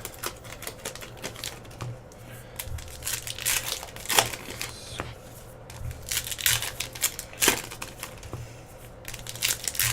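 Baseball card pack wrappers crinkling and crackling as they are handled, in irregular rustles with sharp crackles, over a steady low hum.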